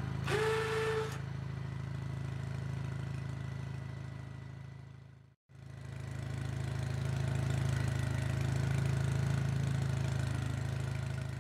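Honda HT3813 lawn tractor's engine running steadily as the tractor drives, a low even hum, with a short whistling tone in the first second. The sound drops out for a moment about five seconds in, then the engine hum returns.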